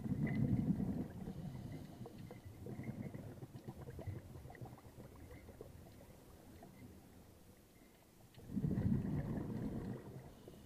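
Underwater, a scuba diver's exhaled bubbles rumbling past the camera housing in two main bursts, one at the start and one near the end, with faint scattered clicks in between.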